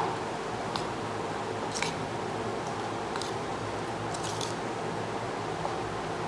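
A hand mixing raw prawns with spice powders in a plastic bowl: faint wet squishing and a few soft clicks over a steady background hiss.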